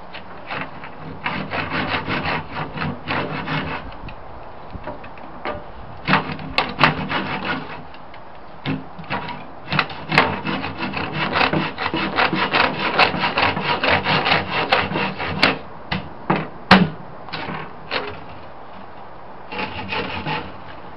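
Handsaw cutting through the timber of a wooden TV cabinet in quick back-and-forth strokes. The sawing comes in several runs with short pauses between them, and there are a few sharp knocks, the loudest near the end.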